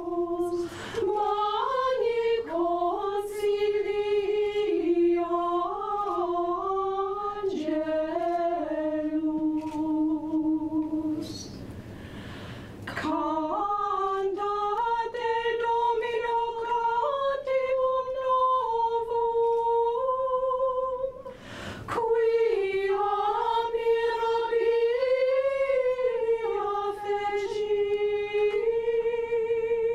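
Small women's vocal ensemble singing a cappella in close harmony, holding long notes that step up and down in pitch. Two short breaks between phrases, about twelve and twenty-one seconds in.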